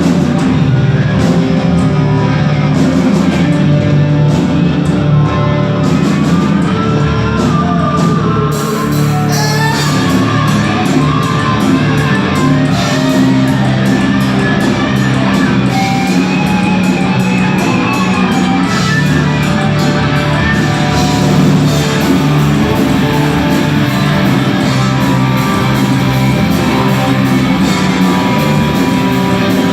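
Rock band playing live and loud: distorted electric guitars over bass and drums.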